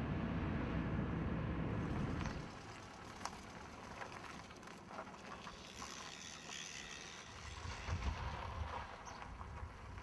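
Car interior road and engine noise, a steady low rumble, which cuts off about two seconds in to quieter open-air street ambience with a few faint clicks.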